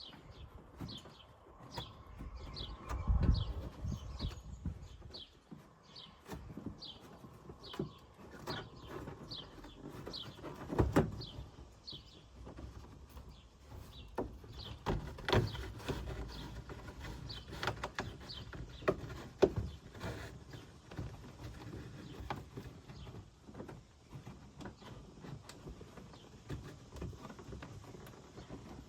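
A bird chirping over and over, a short falling note about twice a second, for the first twelve seconds or so. Scattered knocks, clicks and rustles run throughout, the loudest about three, eleven, fifteen and nineteen seconds in.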